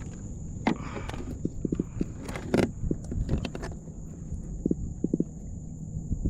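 Irregular light knocks and clicks on a kayak, some in quick little runs, over a low rumble of wind or water.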